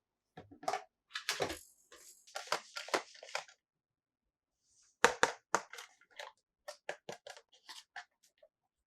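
Plastic toy pieces and packaging being handled: a burst of crinkling and rustling, a short pause, then a string of sharp clicks and taps.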